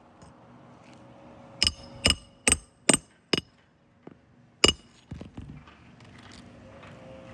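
Hammer blows with a metallic ring: five quick strikes about half a second apart, then one more after a pause and a few lighter knocks.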